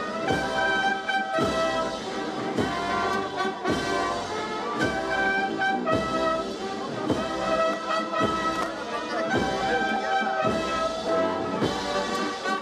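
A brass band plays a slow Holy Week processional march, with trumpets and trombones holding sustained chords over a heavy drum beat about once a second.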